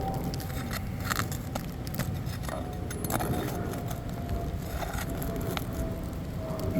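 Scattered short scrapes and clicks of hand tools prying at 3-tab asphalt roofing shingles and their nails, over a steady low rumble and a faint steady hum.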